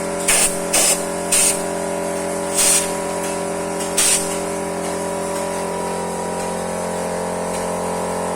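A Hualian vacuum sealer's oil-lubricated vacuum pump running with a steady hum, with several short hisses of air at irregular moments.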